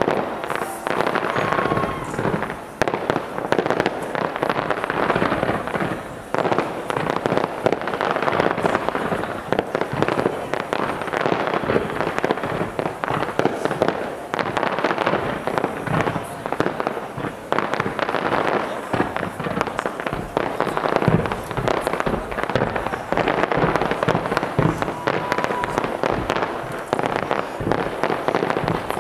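Aerial fireworks display: a dense, continuous stream of bangs and crackles as shells burst one after another.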